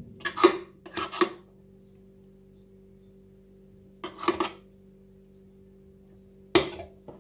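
Metal spoon scraping and clinking against an aluminium foil tray while scooping meat filling, in short bursts: two close together at the start, one about four seconds in, and a sharper knock near the end. A faint steady hum runs underneath.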